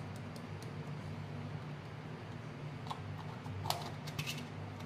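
Faint steady low hum, with a few light clicks and taps about three and a half to four seconds in, while ground black pepper is shaken over grated vegetables in a bowl.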